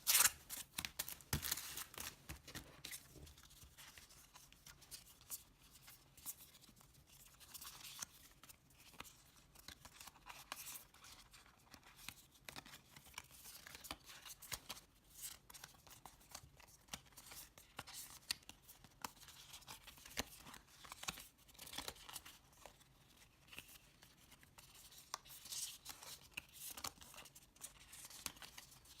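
Packaging being handled and opened by hand: plastic and paper crinkling and tearing, with scissor snips and small clicks, a louder flurry right at the start.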